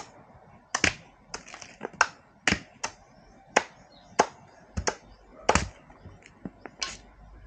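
A bolo (machete) chopping bamboo pieces against a wooden stump: an irregular run of sharp, short chops, roughly two a second.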